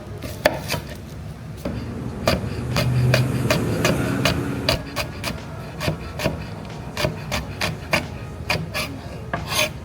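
A kitchen knife chopping on a wooden cutting board, about twenty sharp, uneven knocks. A low hum joins in for a couple of seconds about a third of the way through.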